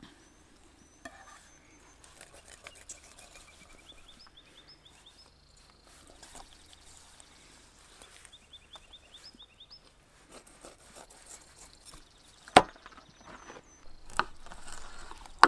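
Fillet knife working through a sockeye salmon on a plastic cutting board: soft slicing and scraping, with one sharp knock of the blade on the board near the end and lighter taps after it. A bird chirps faintly in the background.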